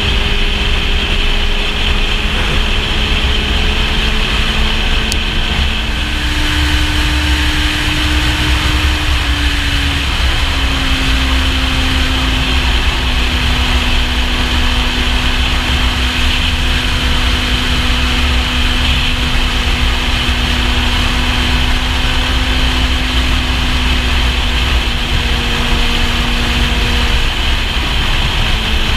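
Kawasaki Z750's inline-four engine running at highway speed under heavy wind rush buffeting the microphone. About six seconds in, the engine note steps up, then settles and holds steady.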